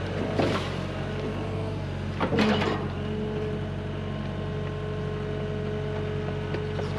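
Hyundai HX85A excavator's diesel engine running steadily with a steady hydraulic whine. There are two short, louder scraping or clunking noises, about half a second and about two and a half seconds in.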